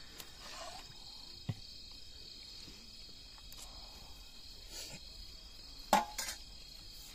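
Crickets chirping steadily in a high, even band. A few faint clicks and a pair of sharper knocks about six seconds in stand out over it.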